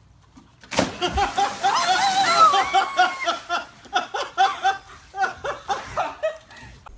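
A person jumping from roof height hits the water of a swimming pool with one sharp splash about a second in. Loud laughter in quick repeated bursts follows and runs for several seconds.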